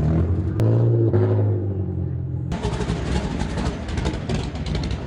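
Late model race car engines running, a steady low engine tone, with a sudden change about halfway through to a harsher, noisier engine sound.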